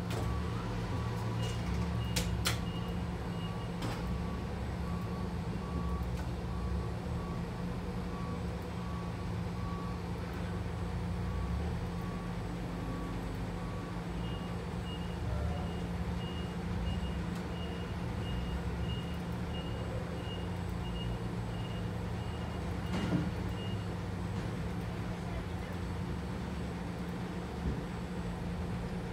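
Steady low machinery hum with a repeating electronic warning beep, like a reversing alarm: a lower-pitched beep repeats through the first half, then a higher-pitched beep takes over and stops a few seconds later. A few sharp knocks come in between, typical of a loading dock while a trailer is unloaded.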